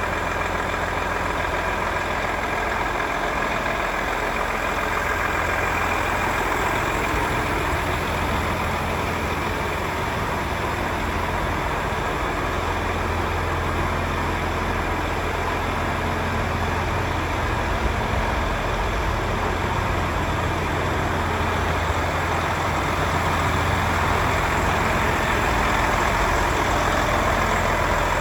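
Volvo FH 500 tractor unit's 13-litre straight-six diesel engine idling steadily, with no revving.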